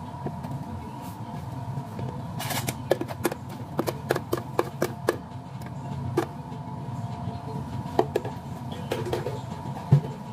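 Plastic cup and blender jug clicking and knocking as smoothie is spooned from the jug into a tall plastic cup: a quick run of sharp taps a few seconds in, then a few single knocks, over a steady hum of shop equipment.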